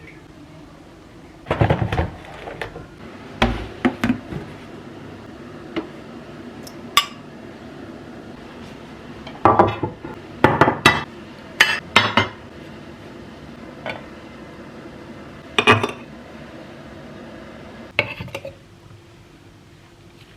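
Kitchen dishes and metal utensils clinking and knocking together in scattered, irregular clusters of sharp clatter.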